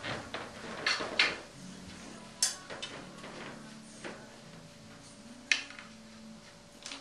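A handful of sharp, separate clacks and knocks of pool balls and cue being handled at the table, the loudest about a second in and about five and a half seconds in, over a low steady hum.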